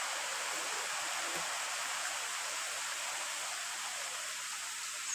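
Heavy rain falling steadily on trees and a wet road.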